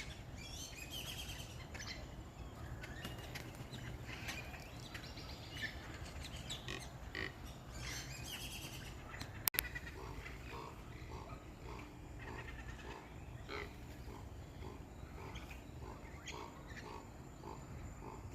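Wild green parrots calling in the trees: shrill squawks cluster near the start and again around eight seconds in. From about ten seconds on comes a steady run of short low calls, roughly one and a half a second. A single sharp knock sounds about nine and a half seconds in.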